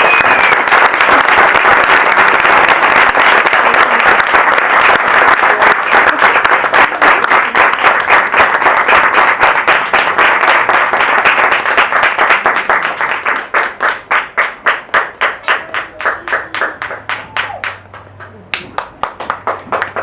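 Audience applauding loudly, breaking into rhythmic clapping in unison over the second half, which thins out near the end.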